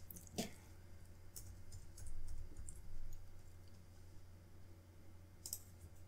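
Scattered light clicks of a computer keyboard and mouse being operated: one near the start, a run of several between about one and three seconds in, and a quick pair near the end, over a low steady hum.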